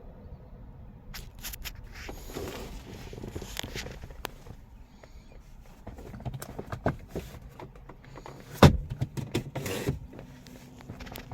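Scattered clicks, knocks and rustling from someone handling a car's body and door. A single sharp knock comes about two-thirds of the way through and is the loudest sound.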